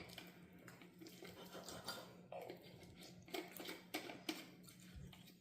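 Near silence: quiet room tone with a faint steady low hum and a few soft clicks.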